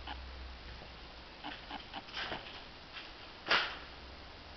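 Faint scattered ticks and handling noise from a handheld camera being carried through an empty room, with one short, louder puff of noise about three and a half seconds in.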